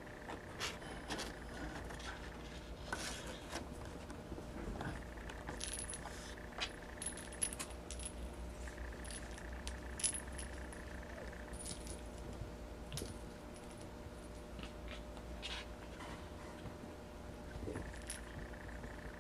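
Scattered light metallic jingles and clicks, irregular and brief, as kittens play with a small toy ball on carpet.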